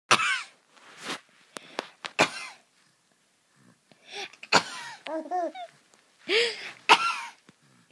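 A woman's sneezes, put on over and over in play: about six sharp, loud bursts spaced a second or two apart. Between them, around the middle, come a small child's short bouncing giggles.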